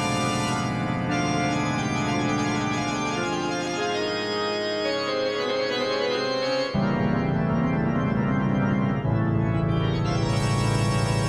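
Instrumental music of slow, held chords that shift every second or two; a deeper, fuller bass comes in suddenly about two-thirds of the way through.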